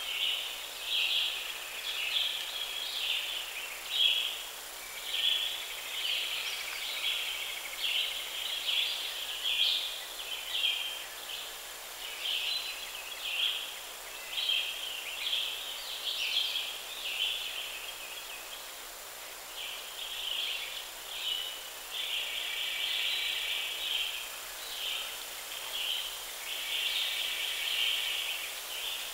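Woodland ambience: a dense, continuous chorus of high-pitched calls, pulsing in short bursts of under a second and now and then merging into longer unbroken stretches.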